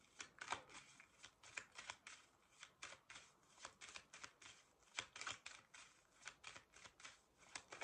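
Tarot cards being shuffled by hand: a soft, irregular run of card slaps and flicks, about four a second.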